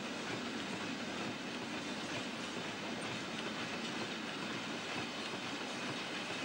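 Freight train of ballast hopper wagons rolling past behind an electric locomotive: steady, even noise of wheels on rail.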